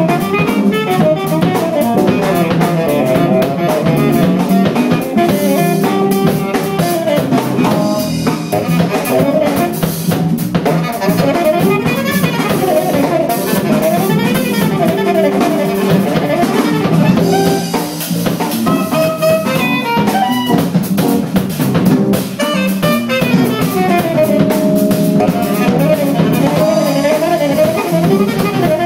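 Live jazz: a saxophone solo line over walking upright bass and a drum kit with rimshots and cymbals, in a microtonal arrangement.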